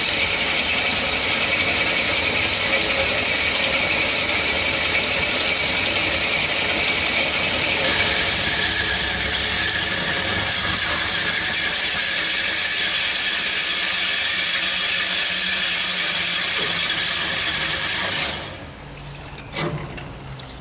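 Cormak G5025 metal-cutting band saw running steadily through a cut, a loud mechanical noise with a high hiss. It stops about 18 seconds in, and a single click follows shortly after.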